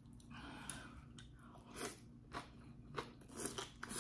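A person eating chewy cold noodles with leafy greens: chewing and slurping, heard as a run of short mouth clicks that come closer together near the end.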